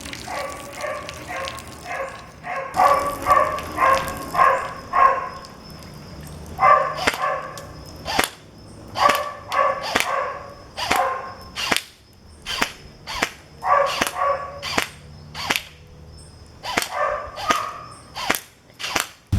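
Airsoft gun firing a long series of single shots, each a sharp crack, about one a second in places. Mixed with them are loud bursts of short, pitched, yapping sounds in quick runs.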